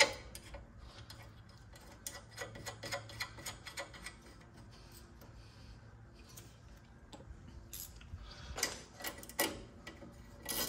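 Ratchet wrench clicking in quick runs as the 12 mm bolt holding the brake-line bracket is wound in, with a few louder metal knocks near the end.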